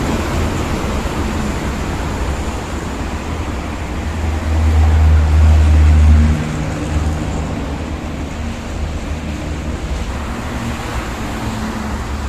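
Steady highway traffic passing, with a deep low rumble that swells to its loudest about four to six seconds in and then drops away, and a faint engine drone lingering after it.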